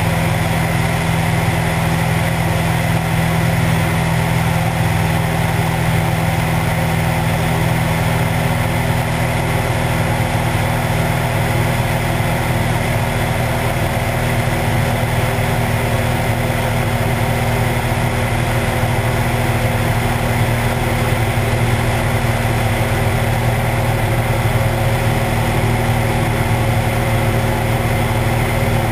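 Cessna 172's piston engine and propeller droning steadily in level cruise flight, heard from outside the cabin with steady wind rush over the camera.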